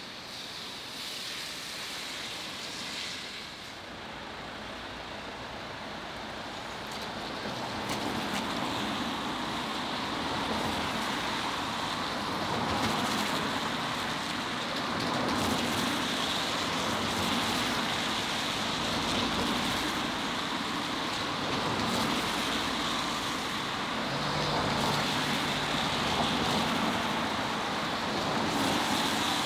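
Steady road traffic noise that swells over the first several seconds, then holds.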